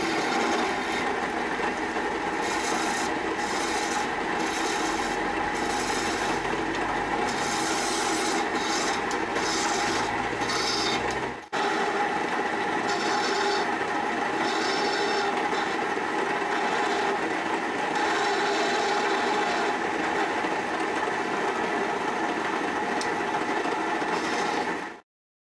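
Hand-held scraping tool cutting a small piece of wood spinning on a lathe: a steady rasping over the lathe's running hum. It drops out for a moment about eleven seconds in and cuts off suddenly near the end.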